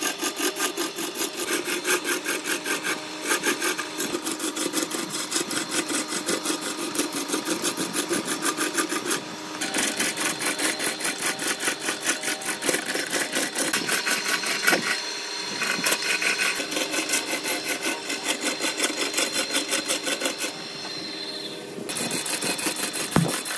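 A gouge cutting into a large glued-up wooden blank spinning on a wood lathe, a fast even scraping chatter as the tool meets each turn of the wood. The cut eases off briefly about nine seconds in and again near the end.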